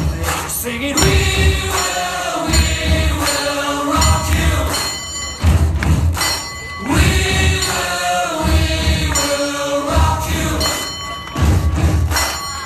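Music with voices singing over a recurring low beat.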